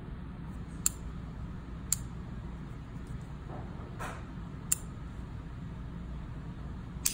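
Four sharp metallic clicks, spaced one to three seconds apart, from the action of an antique .38 Bulldog revolver as its hammer is worked by hand. A steady low hum runs underneath, and a soft rustle comes about four seconds in.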